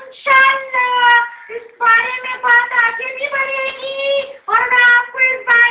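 A high-pitched, nasal, near-monotone voice going on in short phrases with brief breaks, comically altered so that it sounds like a snake charmer's been rather than ordinary speech.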